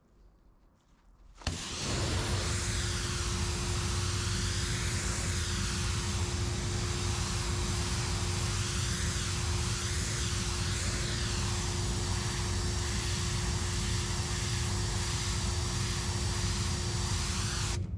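Steam cleaner lance jetting high-temperature steam onto a concrete garden ball: a loud steady hiss over a low machine drone and a steady hum. It starts abruptly about a second and a half in as the trigger is pulled, and cuts off suddenly at the end.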